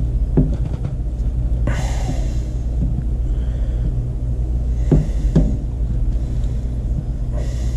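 Knife cutting through a burbot's skin around the head, with light clicks and three short hissing scrapes, over the steady low rumble of a chest-mounted camera being moved against the body.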